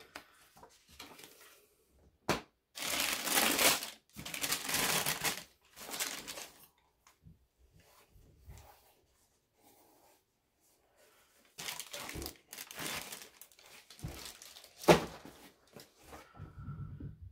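Crumpled printed wrapping paper crinkling and rustling as a pair of suede Chelsea boots is unwrapped and lifted out of a cardboard shoebox. It comes in two long spells, with sharp clicks, the loudest near the end of the second spell.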